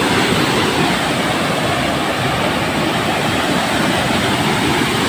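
Steady, loud rushing of flowing water.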